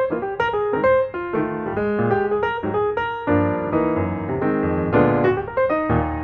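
Background piano music, a keyboard playing a lively run of notes in quick succession.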